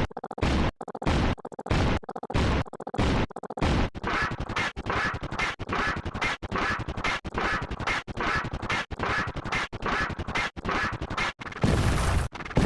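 A short, noisy sound effect repeated in a steady rhythm, one for each counting step. It comes about twice a second at first and speeds up to about three a second some four seconds in. Near the end it changes to a louder, fuller effect.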